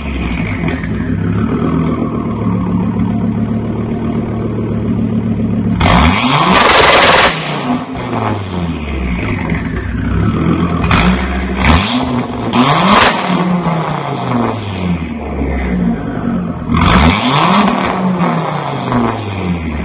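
Car engine revving up and down repeatedly, its pitch climbing and falling several times, with loud rushing surges as it revs hardest about a third of the way in and again near the end.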